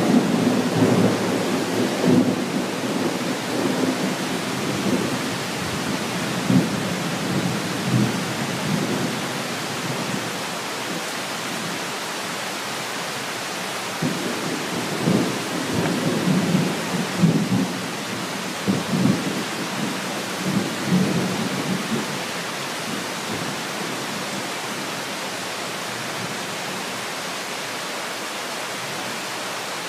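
Thunderstorm: steady heavy rain with low, rolling thunder rumbles that swell and fade through the first third and again in the middle, then rain alone near the end.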